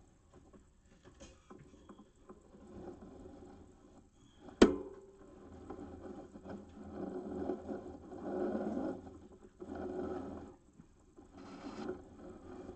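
A single sharp knock about four and a half seconds in, followed by bouts of low rustling handling noise.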